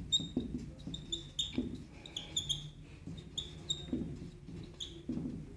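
Whiteboard marker squeaking across a whiteboard as a word is written: a run of short, high squeaks in uneven strokes.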